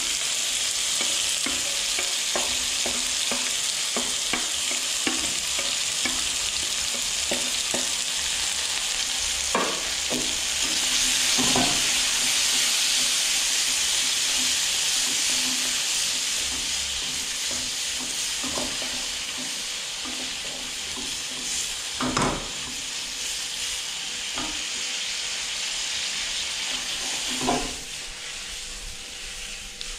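Food sizzling in a hot wok as it is stir-fried, with a cooking utensil repeatedly scraping and knocking against the pan, a few knocks louder than the rest. The sizzle eases off near the end.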